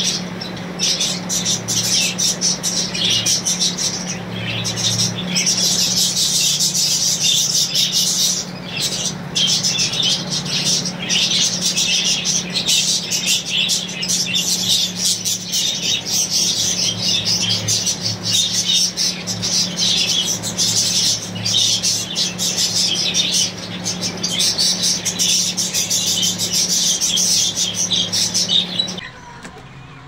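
A large colony of budgerigars chattering together: a dense, continuous mass of warbling chirps from many birds at once over a steady low hum. It drops away abruptly about a second before the end.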